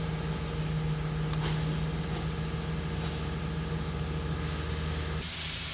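2014 Ford Expedition's 5.4-litre V8 idling steadily, just after new spark plugs and new coils were fitted on cylinders 2 and 5 to cure misfires.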